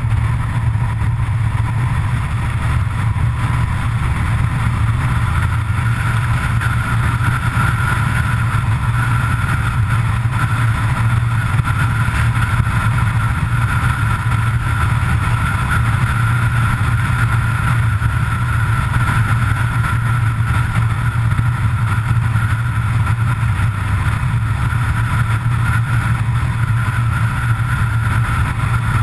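A road vehicle cruising steadily at highway speed: an even low hum of engine and tyres with rushing road and wind noise, holding the same pitch with no revving or gear changes.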